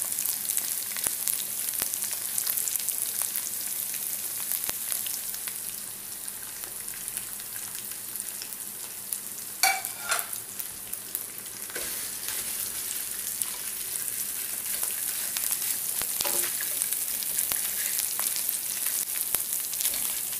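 Fish frying with sambal chili in a pan: a steady sizzling hiss, with a few short knocks about halfway through.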